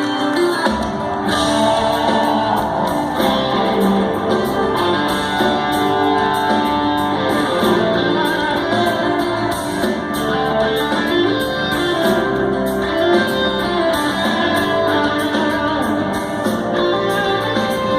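Rock band playing live, with guitars to the fore. Bass comes in about a second in.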